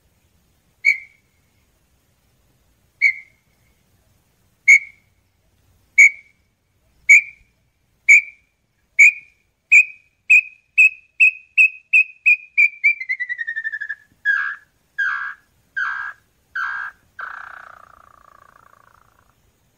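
Small-billed tinamou song: sharp whistled notes, at first about two seconds apart, speeding up into a rapid run that slides down in pitch. Four louder, lower notes follow, then a trailing note that fades away.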